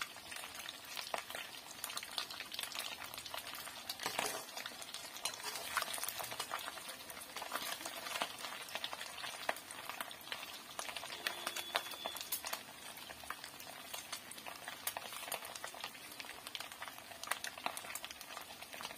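Food frying in oil in a steel kadai, with a steady sizzle, while a perforated metal spoon stirs it and scrapes and clicks against the pan over and over.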